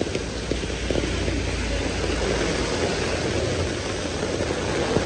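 Heavy rain pouring onto a city street and pavement, a steady hiss, over a low rumble of passing road traffic.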